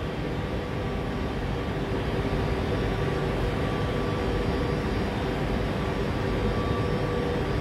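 Steady hum of a stationary double-decker commuter train standing at an underground platform, two steady tones held over a low rumble.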